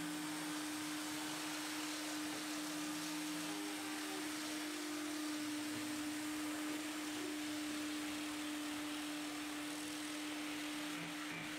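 H0 model railway turntable's electric drive running as the bridge slowly turns: a steady hum over faint hiss.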